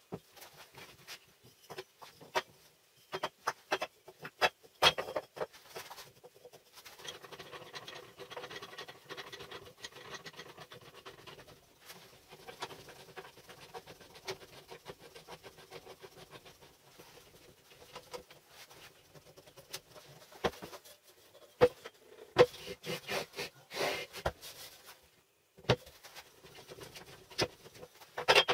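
Wooden blocks and pine strips clacking and knocking against steel rectangular-tube bars as they are laid into a homemade bar clamp and its wooden jaws are fitted, with scraping and sliding between the sharp knocks.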